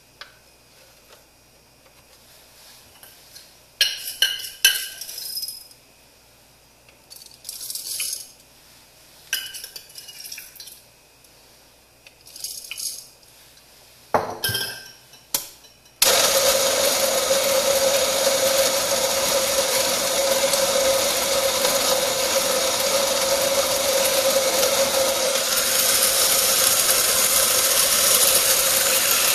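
Scattered metallic clinks and rattles of metal parts being handled, then about halfway through, the homemade motor drive on an Orphan Espresso Pharos conical-burr coffee grinder starts abruptly and runs steadily and loudly with a steady mid-pitched hum as it turns the burrs.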